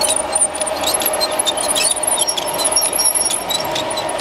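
LGB garden-scale container train passing on a curve, its two-axle container wagons' wheels giving short, high squeals that rise and fall, mixed with scattered clicks and a steady hum underneath.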